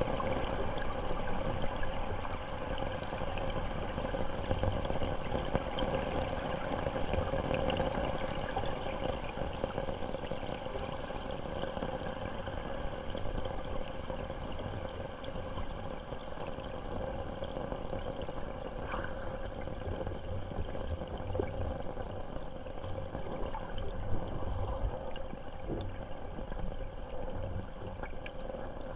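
Flowing stream water heard through an underwater camera: a steady, muffled rushing with uneven low rumbling.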